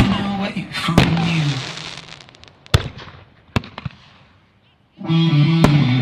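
Aerial firework shells bursting with sharp bangs over rock music with electric guitar. The music fades away after about two seconds, leaving two separate bangs and a short quiet gap, then comes back in loudly near the end.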